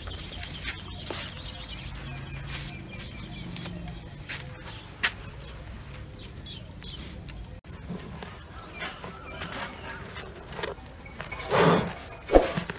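Farmyard sounds around cattle, with faint short bird chirps. Near the end there is a louder burst and then a sharp knock while a cow feeds from a metal tub.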